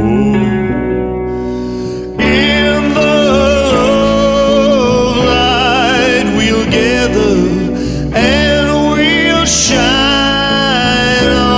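A band playing a song between sung lines, with no words heard. About two seconds in, a wavering lead melody with vibrato comes in over a steady accompaniment.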